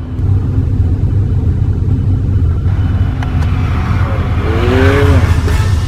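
Motorhome engine running with a steady low rumble as the vehicle drives off, with a rising hiss of road and wind noise in the second half.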